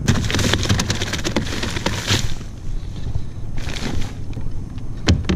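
Rattling and clicking against the plastic deck and storage hatch of a small round fishing skiff as a caught speckled trout is stowed, ending in two sharp knocks near the end.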